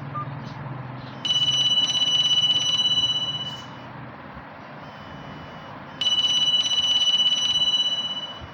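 Nokia mobile phone ringtone playing through the phone's small speaker: a high, rapidly trilling ring in two bursts of about two seconds each, a few seconds apart.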